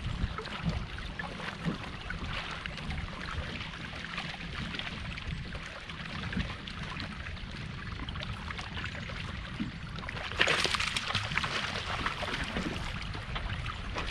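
Water lapping and trickling against the hull of a small fishing boat over a steady low rumble, with a louder splashing rush of water about ten seconds in.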